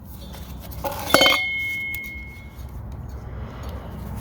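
A single sharp metallic clink about a second in, as a hard object is set down or knocked against metal, ringing briefly before it fades.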